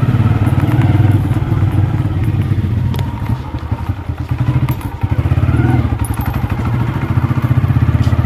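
Motorcycle engine running as the bike is ridden, a fast pulsing rumble. It eases off about halfway through and picks up again after, with a couple of sharp knocks in between.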